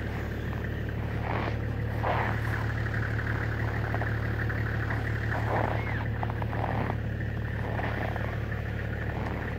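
Vehicle engine running steadily with a low hum, heard from inside the cabin while driving over snow.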